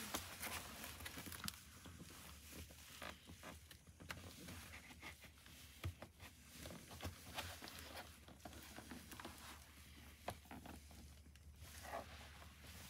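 Faint handling noise: scattered small clicks, scrapes and rustles as intercom cables and parts are worked into a motorcycle helmet's liner.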